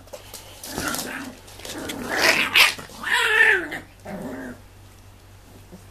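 Six-week-old Tibetan terrier puppies giving short pitched play calls, bunched loudest about two to three and a half seconds in, then quieter.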